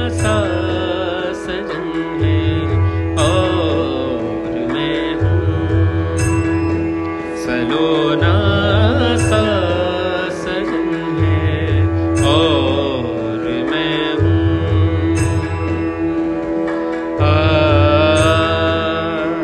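Background instrumental music: a steady drone under a sliding, bending melody, with a low bass note that swells in and out every few seconds.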